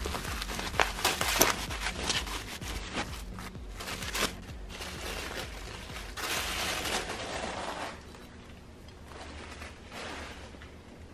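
Bubble wrap and plastic packaging torn open and crumpled by hand, with a quick run of sharp crackles in the first few seconds. Softer rustling of plastic and paper wrapping follows as a plate is unwrapped, then fades lower near the end.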